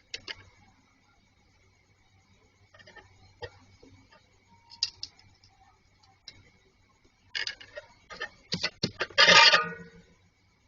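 Small hard objects handled on a work surface: scattered light clicks and taps, then a quick run of them near the end and a short, louder clatter. A faint steady electrical hum runs underneath.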